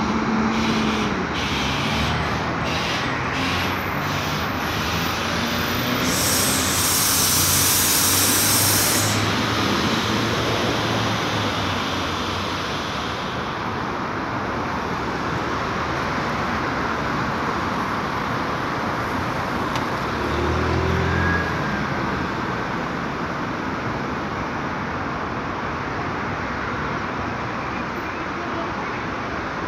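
Otokar Kent 290H city bus pulling in and idling at a stop. About six seconds in, a loud hiss of released air from its pneumatic valves lasts about three seconds, and a short low engine swell comes about twenty seconds in, over steady traffic.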